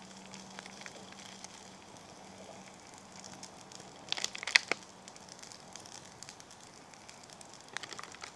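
Small twig fire burning in a Kelly Kettle stove base under a frying pan, crackling with scattered sharp pops. About four seconds in there is a brief, louder cluster of clicks and rustling.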